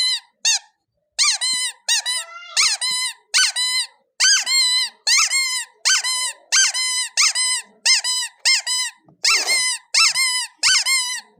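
Squeaky rubber squeeze toy squeaked over and over, about two short squeaks a second, often in pairs, each rising and falling in pitch.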